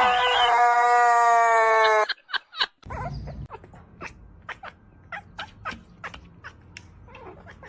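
A pet animal's long, steady wail that cuts off suddenly about two seconds in, followed by scattered light clicks and taps.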